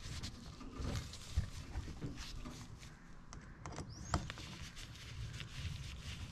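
Light clicking and scraping of Honda CT90 clutch parts being fitted together by hand in rubber gloves, with two sharper metal clicks, about a second and a half in and about four seconds in, and a short rising squeak just before the second.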